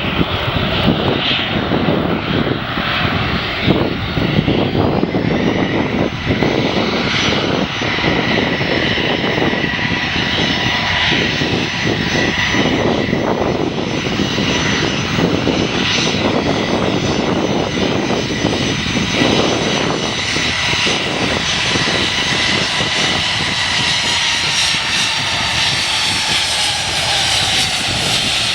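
Jet airliner engines running loud and steady, a continuous roar with a high whine that drifts slightly lower near the end.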